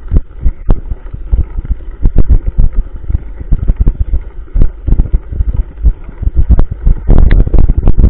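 Mountain bike rolling over a rough dirt-and-gravel road, heard from a camera riding along with it: dense, irregular knocks and rattles from the jolting over a low rumble, with wind on the microphone. The knocks grow louder and denser near the end.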